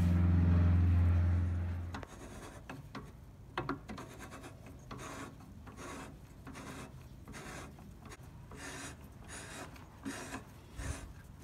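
A steady low hum for about the first two seconds, cutting off abruptly. Then a cutting tool scraping in the ring groove of an aluminium engine piston that is being turned by hand in a drill press: irregular rasping scrapes as metal chips come off, widening a groove that was machined too narrow.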